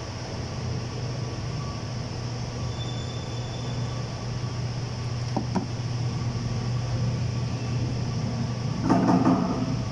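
A steady low machine hum with a hiss over it, a couple of light clicks about halfway through, and a short clatter near the end.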